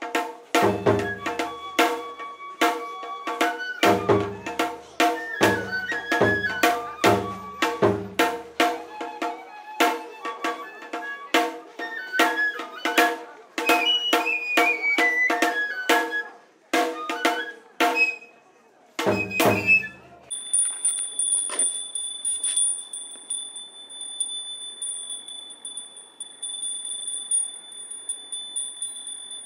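Tsukuda-bayashi festival music: a bamboo transverse flute playing a wandering melody over sharp strikes of a rope-tensioned shime-daiko and deep beats of a large barrel drum, stopping about two-thirds of the way in. After that, a steady high-pitched tone with a few faint clicks.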